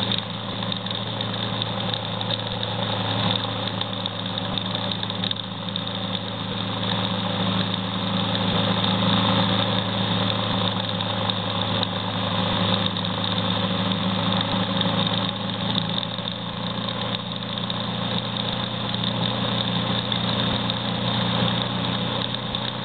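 Motorcycle engine running steadily while riding along a road, its pitch holding fairly even, with road and wind noise mixed in.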